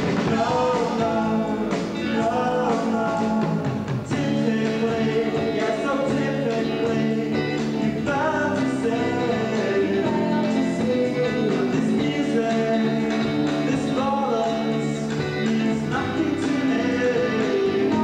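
Live rock band playing, with bass guitar and drums under a singer's vocal line.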